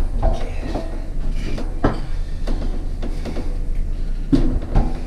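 Irregular knocks and clunks from a cast iron bathtub being hauled by a strap and levered with a wooden board, with one sharp knock about two seconds in.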